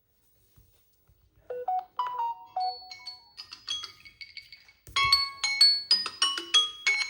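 Smartphone alarm tone playing a bell-like chiming melody of short plucked notes. It comes in softly about a second and a half in and gets much louder and busier about five seconds in.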